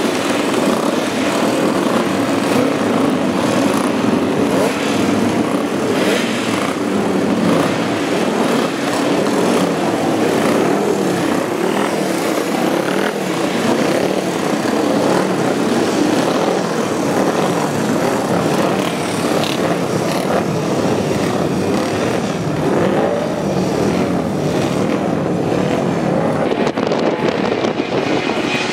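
Several vintage racing motorcycle engines running together, their throttles blipped so the overlapping engine notes keep rising and falling, with wind noise on the microphone.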